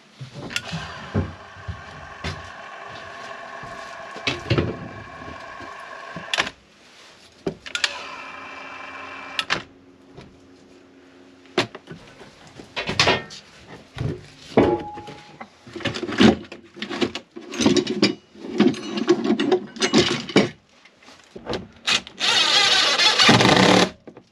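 Battery-powered caulking gun whirring in two runs of a few seconds as it pushes out adhesive, followed by knocks and clicks of handling. Near the end a cordless impact driver rattles a screw in for about two seconds, the loudest sound.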